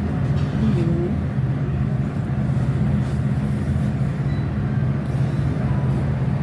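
Steady low mechanical hum, like a motor or engine running, with a constant drone and no change in level.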